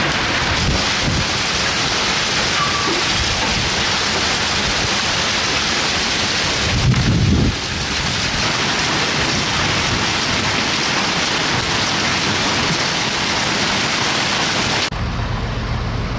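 Heavy wind-driven rain of a severe thunderstorm, a loud steady hiss, with a short low rumble about seven seconds in. Shortly before the end it cuts off abruptly to a quieter, steady low hum.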